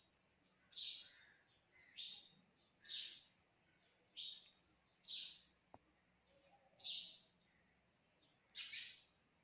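Short, high-pitched chirping calls, each falling in pitch, repeated about once a second (seven calls), with one faint sharp click about halfway through.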